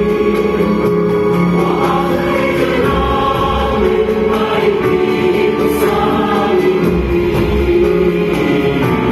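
Live orchestra accompanying singing voices and a choir, with long held notes.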